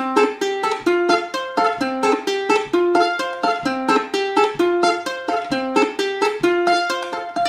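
Solo ukulele played fast: a melody of quick plucked notes in a steady, even rhythm.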